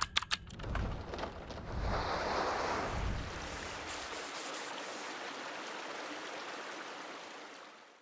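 Opening sound effect: a rushing, surf-like noise swells up over a few low thuds, then holds steady and fades away near the end.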